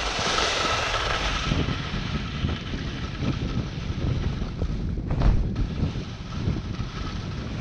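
Wind buffeting the microphone of a skier's camera during a downhill run, a steady low rumble, with the hiss of skis sliding over hard snow that is strongest in the first second and a half. A single knock a little past five seconds in.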